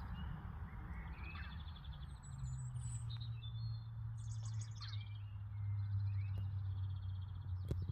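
Small songbirds singing, with repeated rapid trills and chirping phrases, over a steady low hum. A single short click comes near the end.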